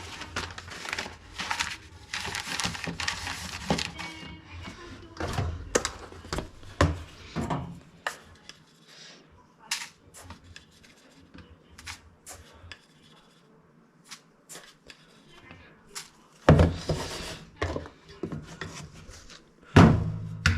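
Small objects being handled and shuffled about: rustling for the first few seconds, then scattered clicks and knocks, with two loud thumps near the end.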